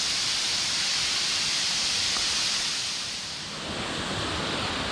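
Steady rush of a waterfall's falling water. It dips briefly about three and a half seconds in, then comes back with a lower, fuller sound.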